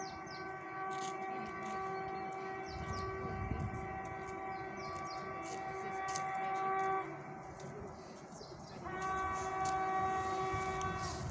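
ER9M electric multiple unit's horn sounding one long blast of about seven seconds, then a second, shorter blast about two seconds later, as the train approaches at speed.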